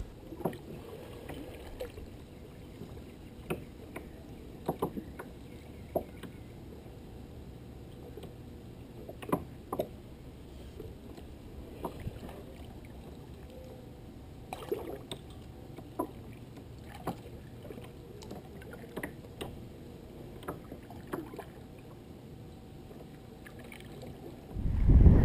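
Kayak being paddled with a double-bladed paddle: a steady low wash of water along the hull, with irregular light clicks and splashes from the paddle strokes every second or two. A much louder sound cuts in at the very end.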